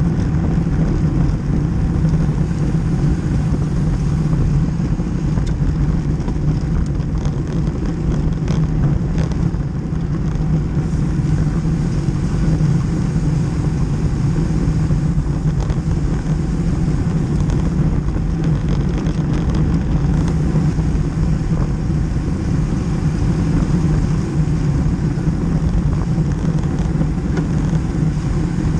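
Steady wind rush on the microphone with tyre and road noise from road bicycles riding at race speed on asphalt.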